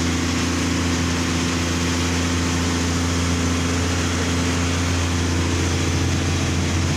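Truck engine running steadily while driving, heard from inside the cab as a constant low drone with road noise over it.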